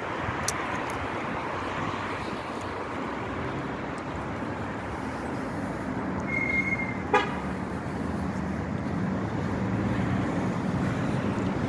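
Steady road-traffic noise. A short high tone sounds a little past six seconds in, followed at about seven seconds by a brief horn toot.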